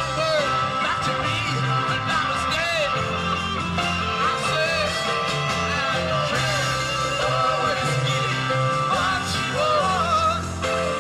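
Live rock band playing through a soundboard recording: guitars, bass, piano and drums keep a steady groove under a wavering, bending lead line with some singing.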